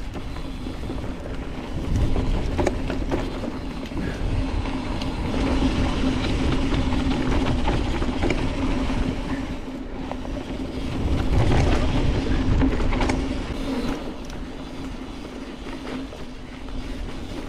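Cross-country mountain bike riding fast down a rough dirt trail: tyres rumbling over the ground with scattered clicks and knocks of the bike rattling, and a steady hum underneath. The rumble swells about two seconds in and again around eleven seconds.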